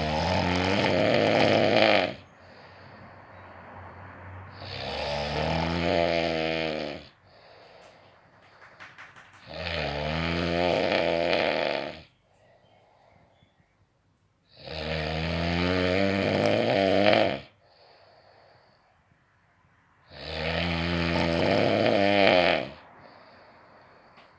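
A sleeping person snoring: five long, loud, pitched snores about every five seconds, each lasting around two seconds, with quieter breathing between them.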